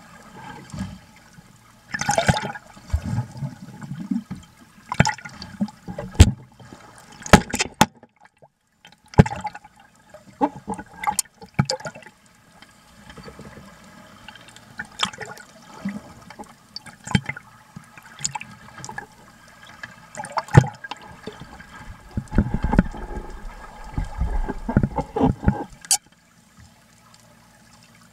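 Water sloshing and bubbling heard through an underwater camera, in irregular bursts: some short and sharp, some longer rumbling runs of bubbles.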